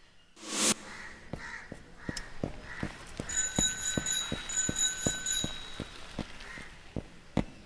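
Quick, even footsteps on a paved road, about four a second, after a short rushing whoosh at the start. Around the middle a bell rings in two stretches with a short break.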